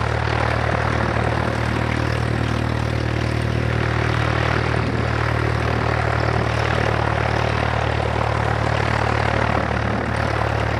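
Light aircraft's piston engine and propeller running at a steady drone, with no rise or fall in pitch.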